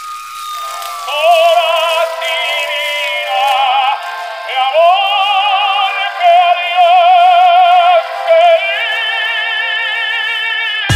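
Music: a high, operatic-style singing voice holding long notes with wide vibrato, with no bass beneath it. It starts with a falling glide about half a second in and stops abruptly at the end.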